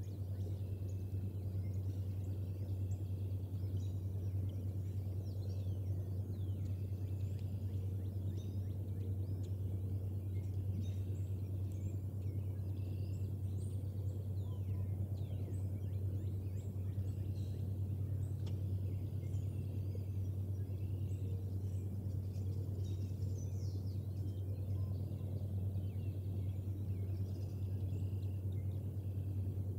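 Many short, high bird chirps scattered throughout, over a steady low hum.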